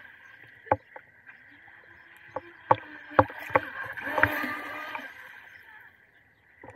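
UDI005 brushless RC speed boat's electric motor whining faintly, its pitch wavering as the throttle changes, with about six sharp cracks through the middle. The whine fades out near the end.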